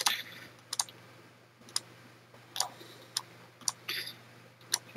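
Scattered sharp clicks from a computer mouse and keyboard, about seven or eight single clicks spaced half a second to a second apart, with a quick little cluster near the four-second mark.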